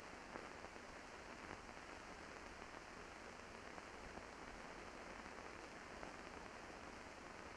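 Near silence: only a faint, even hiss of background recording noise, with no distinct sounds.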